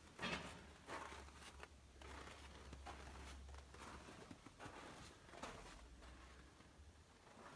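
Near silence in a small room with faint, soft, irregular steps and rustles, roughly one a second, over a faint low hum.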